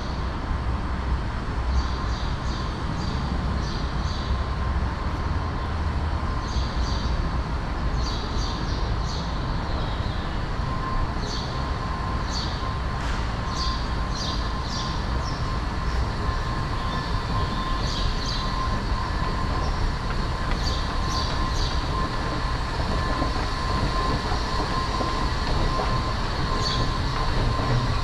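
Washington Metro train running on the rails, a steady rumble with a steady high whine. Short, high wheel squeals come again and again throughout.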